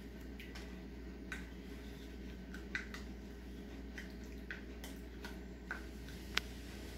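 Brass Junghans clock movement ticking: sharp short clicks of the escapement at uneven spacing, some louder than others.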